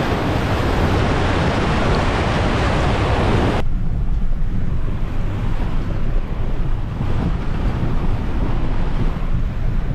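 A four-wheel drive fording a river: water rushing and splashing around the vehicle over the low sound of its engine. About three and a half seconds in the splashing cuts off abruptly, leaving only the low engine and road noise of the vehicle driving, with wind on the microphone.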